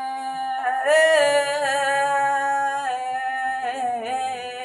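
A solo voice singing a naat without instruments, drawing out a long ornamented note at the end of a line, with small bends in pitch and a lift about a second in; it stops abruptly near the end.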